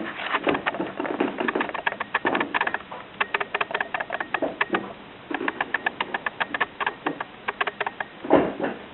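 Rapid, uneven clicking and tapping as a cat bats at an electric fan, several clicks a second, with a louder thump near the end.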